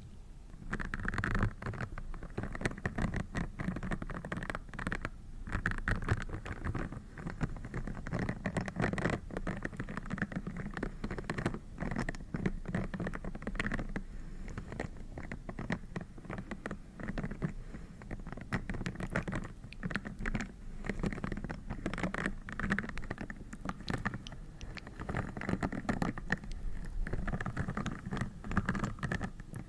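Dense, rapid crackly tapping and scratching close to the microphone: ASMR trigger sounds.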